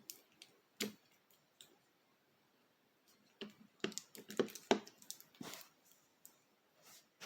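Handling noise: sharp clicks and light knocks, one a little under a second in, then a quick cluster of about a dozen in the middle, with quiet between.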